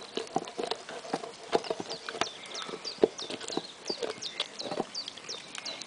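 A Labrador retriever gnawing a large raw bone: irregular sharp cracks, clicks and scrapes of teeth on bone, several a second.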